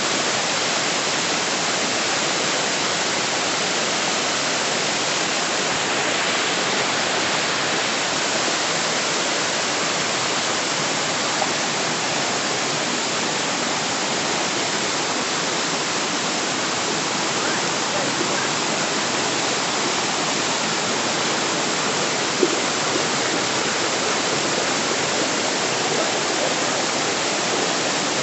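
Waterfall rushing with a steady, even roar of falling water. A single small knock comes about two-thirds of the way through.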